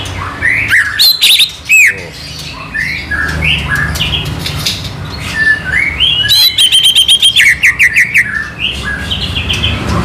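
Male cucak ijo (green leafbird), a contest songbird in singing form, singing loudly: a string of varied chirps and sweeping whistles, with a fast run of rapidly repeated notes about two-thirds of the way through.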